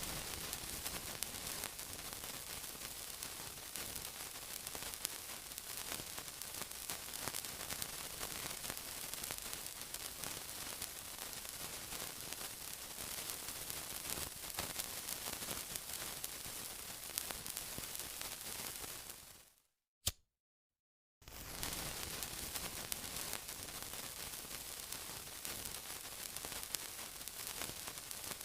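Steady sizzling, a dense crackling hiss. About twenty seconds in it fades out into a second and a half of dead silence with a single click, then starts again abruptly.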